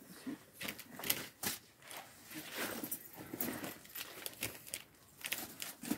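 Leather handbags being handled: scattered rustling with sharp clicks and taps, the sharpest a little after one second in and again near the end.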